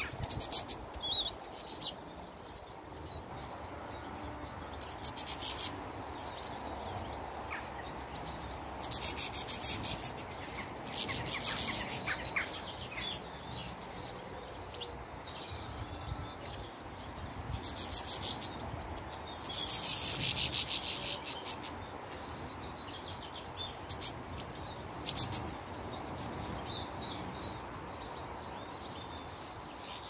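Small garden birds twittering in repeated short, high-pitched bursts at a seed feeder, over steady background noise.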